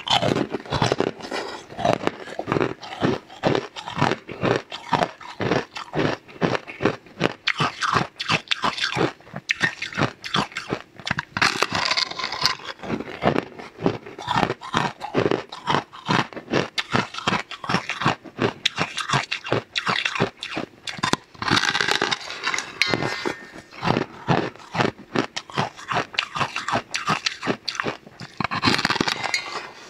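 Close-miked crunching as a person bites and chews a large, thin, crisp white cracker sheet: dense, rapid crackles without a break, flaring into sharper, brighter crunching around three times.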